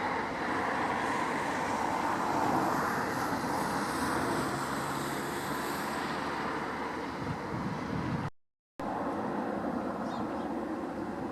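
Jet aircraft engines running, a steady rushing noise with a faint high whine. The sound cuts out completely for about half a second around eight seconds in.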